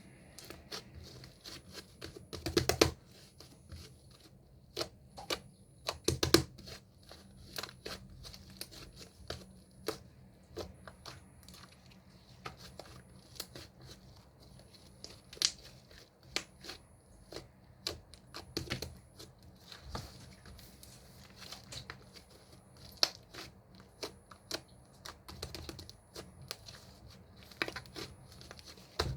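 Irregular crinkling and tearing handling noises with many sharp clicks, louder in a few short rustling bursts.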